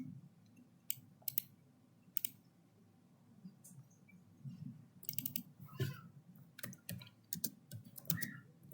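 Faint clicks of a computer mouse and keyboard while a program is being edited: a few single clicks in the first seconds, then a quicker run of clicks from about five seconds in.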